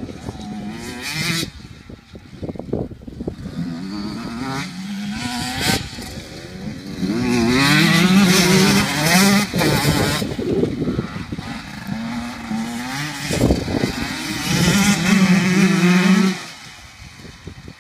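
Two motocross bikes revving and riding across the field, among them a KTM 150 SX two-stroke. The engine pitch climbs and falls as the riders accelerate and shift. The engines are loudest about eight seconds in and again around fifteen seconds, when a bike runs close, then fade near the end.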